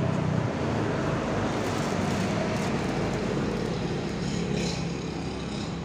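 Steady road traffic noise: vehicle engines running and passing by, with no single event standing out.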